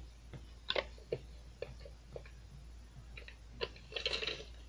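Scattered light clicks and taps from handling a tape measure, with a brief scratchy rustle about four seconds in.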